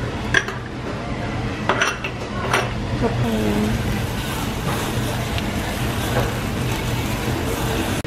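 Metal tongs clicking against a charcoal grill's wire mesh three times as raw meat is laid on, then, from about three seconds in, a steady hissing sizzle of meat cooking over the charcoal.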